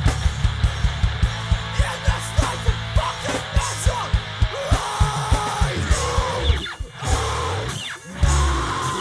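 Heavy rock song from a recording: a fast, even kick-drum pattern under distorted electric guitar and bass. About seven seconds in the band drops out briefly, then comes back in heavier.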